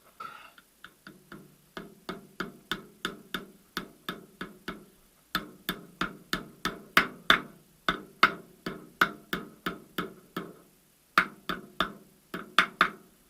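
Hammer blows driving the left drive-shaft oil seal into a VAZ front-wheel-drive gearbox housing: steady sharp taps about three a second, each with a short ring, in three runs broken by two brief pauses.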